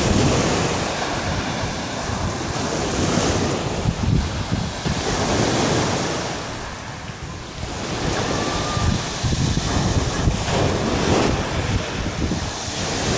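Small waves breaking and washing up a pebble beach, the surf swelling and easing, quieter for a moment around the middle before building again, with wind buffeting the microphone.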